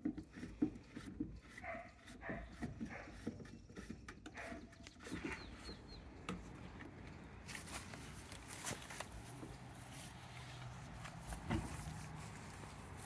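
Small clicks, knocks and brief squeaks of plastic garden-hose fittings being handled and threaded onto an IBC tote's bottom valve. In the second half these give way to a steadier outdoor hiss with a faint low hum.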